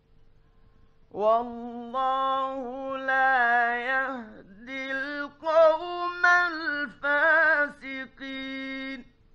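A male Quran reciter chanting in the melodic mujawwad style: one long phrase that starts about a second in, held notes with ornamented turns and short breaks, ending just before the end. A faint steady hum from the old late-1950s studio recording runs underneath.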